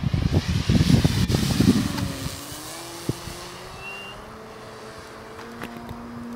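Wind buffeting the microphone for the first two seconds, then the steady whine of an electric RC aerobatic plane in flight, a brushless motor turning a 15x8 propeller, its pitch rising slowly.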